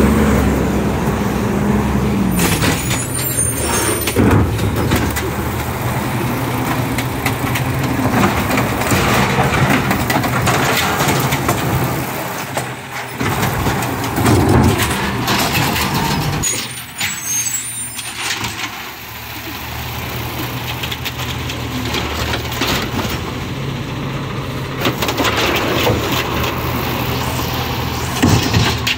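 Recycling collection truck's engine running steadily, with air-brake hisses and several knocks of bins and machinery. The loudness dips for a couple of seconds after the middle.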